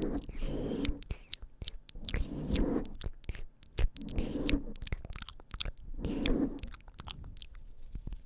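ASMR mouth sounds close to the microphone: many sharp clicks and smacks, with fuller bursts about every two seconds.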